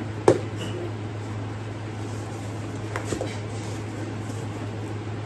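Small cardboard box being handled and opened: one sharp knock about a third of a second in, then a couple of lighter taps around three seconds. A steady low hum runs underneath.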